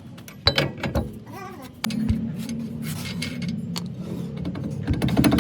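A few clicks and knocks, then, about two seconds in, a machine starts and runs with a steady low hum.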